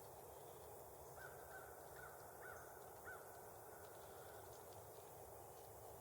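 A distant bird calls five times in quick succession between about one and three seconds in, faint over a quiet outdoor hush.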